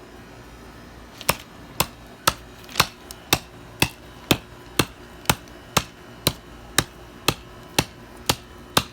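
Freshly sharpened hatchet chopping into wood: a steady run of sharp strikes about two a second, starting about a second in.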